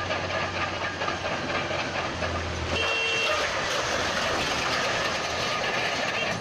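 Crawler bulldozer's diesel engine running under load as it pushes through demolition rubble, with a dense rushing noise throughout. A low engine drone drops away a little under three seconds in, as a short high beep sounds.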